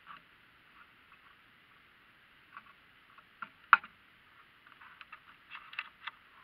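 Scattered small clicks and taps from handling a bow with a camera mounted on it, close to the camera's microphone. One sharp click comes a little before four seconds in, and a quick cluster of clicks comes near the end.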